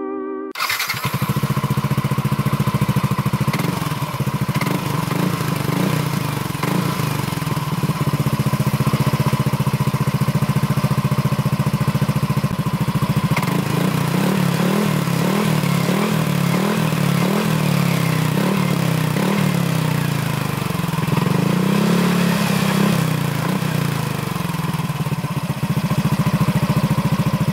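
Yamaha NMax scooter's single-cylinder engine, heard through a newly fitted Pro Liner Neo Standard Racing aftermarket exhaust. It starts about half a second in and runs steadily, its note wavering up and down in the second half. The exhaust note is called soft ("empuk") and very loud ("banter banget").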